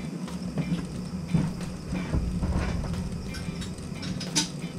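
Scattered light clicks and taps of small metal parts and tools being handled, with one sharper click near the end, over a steady low hum.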